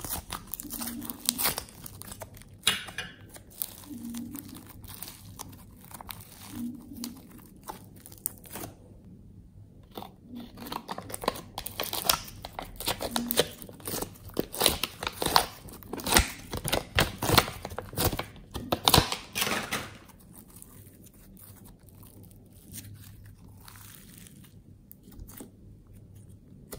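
Hands pulling apart and squeezing slime and clay pieces, making irregular sticky crackling and tearing sounds. The crackles come thickest and loudest in the middle stretch and thin out and grow quieter for the last several seconds.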